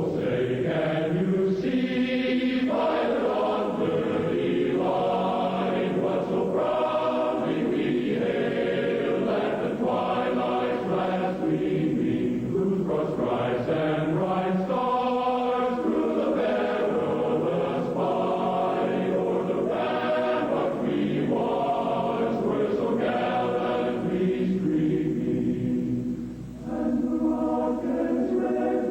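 Choral music: a choir singing slow, held chords, with a brief pause near the end.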